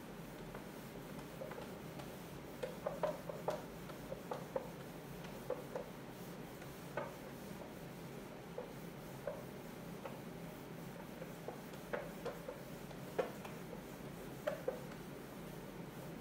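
Faint, irregular taps and short scratches of writing, with a steady low hum underneath.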